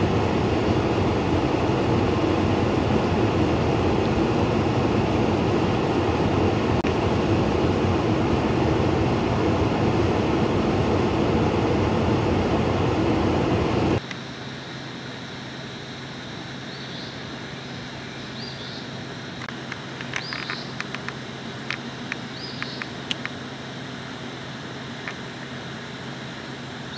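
A loud steady rushing noise with no pitch to it. About halfway through it cuts to a much quieter outdoor background with a faint low hum, a few short high chirps and scattered light clicks.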